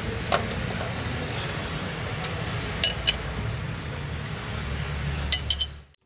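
A few light metallic clinks of a socket and extension against a spin-on oil filter as it is unscrewed anticlockwise from the engine, over a steady background hiss. The sound cuts off just before the end.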